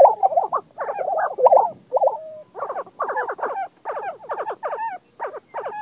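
Lesser prairie chickens calling in courtship display: a quick run of short calls that bend up and down in pitch, several overlapping one another.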